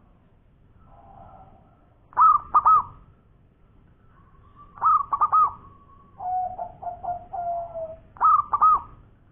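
Zebra dove (perkutut) cooing: three loud bursts of quick, rippling notes, one every few seconds, with softer, lower trilled coos in between.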